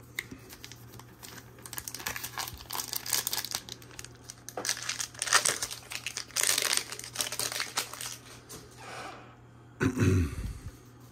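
Foil wrapper of a Disney Lorcana booster pack being torn open and crinkled by hand, a run of irregular crackling rustles. A louder, low bump comes near the end.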